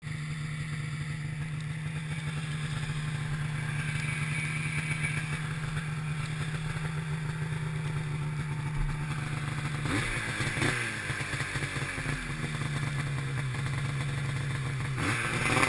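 Ski-Doo MXZ X-RS 800's Rotax two-stroke twin idling steadily, then blipped twice about ten seconds in. It settles back to idle and starts revving up, louder, near the end.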